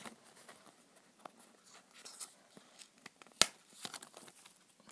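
Handling of a small white cardboard packaging insert and clear plastic tray: soft rustling and scraping as it is opened, with one sharp click about three and a half seconds in.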